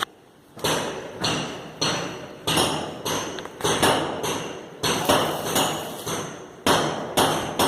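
Repeated hammer blows, about two a second, each with a short ringing tail.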